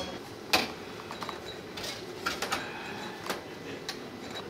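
Metal cooking utensils clinking against a wok and serving dishes as food is dished out: a handful of short, separate clinks about half a second to a second apart over a low hum of room noise.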